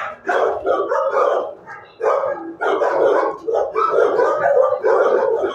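Several dogs in shelter kennels barking, their barks overlapping almost without a break, with one short lull about two seconds in.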